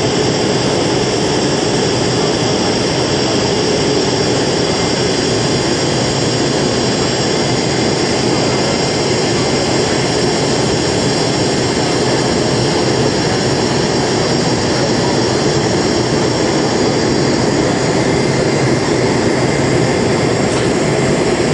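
Jet turbine engine running steadily: a loud, even rush with a constant high whine.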